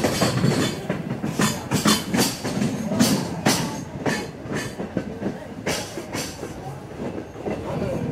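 Passenger railroad car rolling along the track, its wheels clacking over the rail joints, with irregular knocks and rattles from the car over a low rumble.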